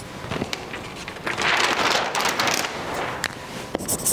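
Large sheet of flip chart paper being turned over: loud paper rustling and crackling about a second and a half in, with a few sharp clicks near the end.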